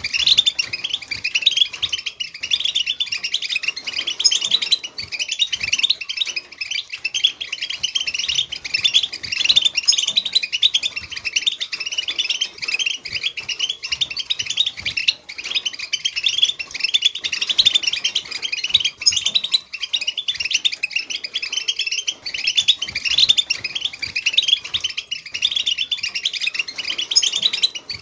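A group of European goldfinches twittering together: a dense, unbroken stream of rapid high chirps.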